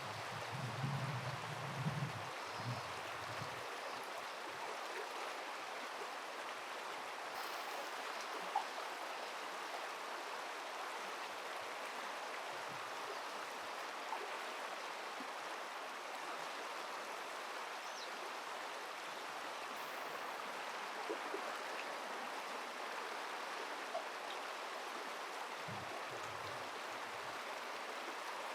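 Steady rush of flowing river water, with brief low rumbles near the start and again near the end.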